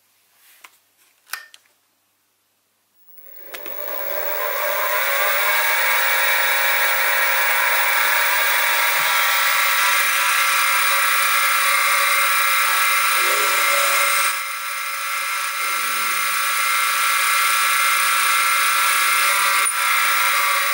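A Sieg SX2P mini mill's spindle motor starts about three seconds in with a rising whine as it comes up to speed, then runs steadily while a drill bit bores into a small metal cylinder block held in the vise. The level dips briefly partway through. A few faint knocks come before the motor starts.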